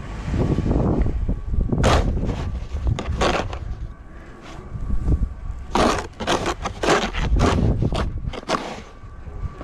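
Snow shovel scraping and pushing through snow, a few single strokes and then a quick run of scrapes in the second half, over a constant low rumble of strong wind on the microphone.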